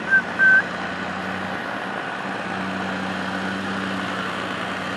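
Outboard motor of a bass boat idling at low speed, a steady hum that grows a little stronger about halfway through. A few short high chirps sound right at the start.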